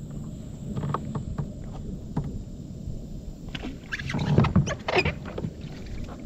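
Knocks against a fishing kayak's hull and water splashing around it, thickening into a cluster of splashes and rattles about three and a half seconds in.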